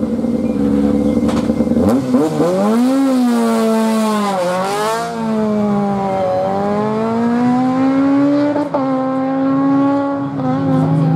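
Honda Civic race car's four-cylinder engine held at steady revs, then launching about two seconds in: the revs climb sharply, dip and climb again several times as it shifts up and accelerates away.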